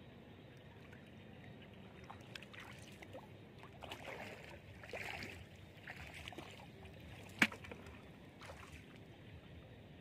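Irregular splashing and sloshing of shallow floodwater, typical of someone wading through it, louder in the middle, with one sharp click about seven seconds in.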